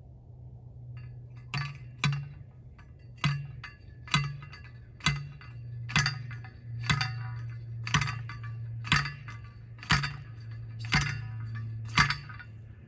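Hand post driver striking the top of a PVC fence post, about a dozen metallic whacks roughly one a second, driving the post into the ground, over a steady low hum.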